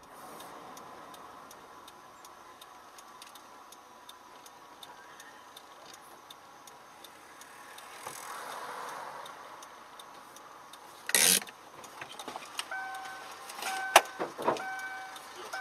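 Faint steady hiss with light, regular ticking, as inside a stopped car. A loud knock comes about two-thirds of the way through, then a few sharper knocks near the end, with a repeating series of electronic beeps at two or three pitches.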